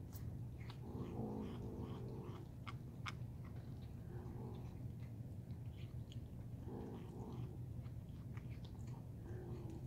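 Kittens chewing and crunching food scraps, with scattered short clicks. A few low, drawn-out cat calls come about a second in, around four seconds and near seven seconds, over a steady low hum.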